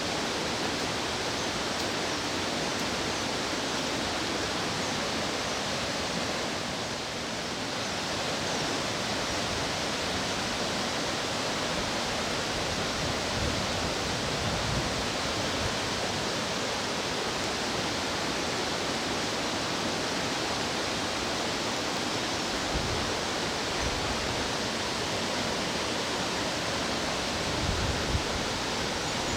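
Fast-flowing mountain stream rushing steadily, a constant wash of water noise, with a few soft low bumps near the end.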